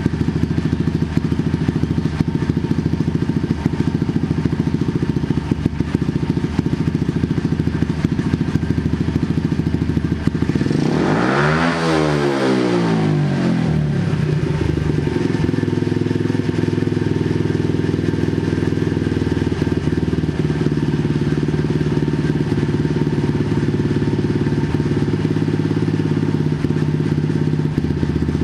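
125cc race bike engine running in fourth gear on a rear-wheel inertia dyno, with the rear wheel turning. About ten seconds in it makes one power run: the engine pitch climbs for about two seconds toward a reported peak of 11,000 rpm, then falls back over about two seconds to steady running.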